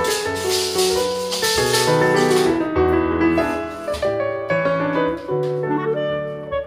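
Piano-led background music with a moving bass line.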